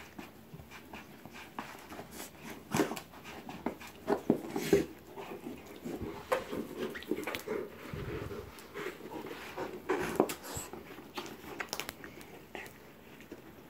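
Rottweiler panting and gnawing at a football to work a hidden treat out of it, with irregular knocks and scrapes from the ball.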